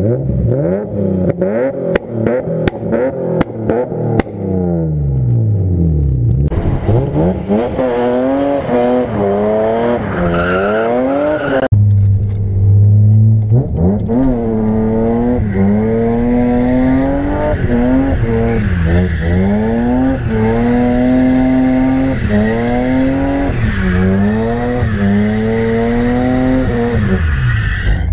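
BMW E36 M3's inline-six engine revved hard, first in short blips, then pulling through the gears: the pitch climbs and drops back again and again at each gear change under full acceleration.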